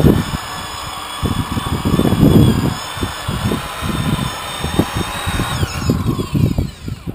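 Electric rotary polisher running with a steady whine while its foam pad buffs the freshly painted boat hull, with uneven low rubbing from the pad. Near the end it is switched off and its whine falls away as it spins down.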